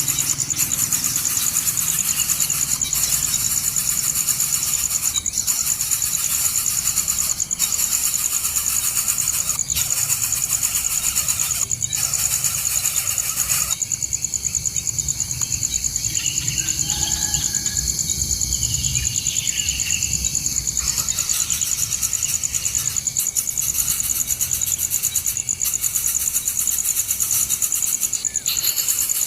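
Steady, high-pitched outdoor insect drone with a low rumble underneath and a few faint short bird calls midway.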